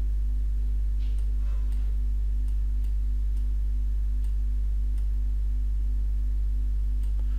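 Steady low electrical hum with a fainter pulsing buzz above it, and a few faint scattered clicks.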